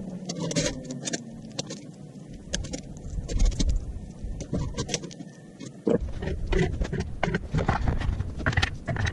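Sped-up time-lapse audio of metal-table assembly: a rapid jumble of clicks, knocks and clanks from parts and tools being handled, busier in the second half.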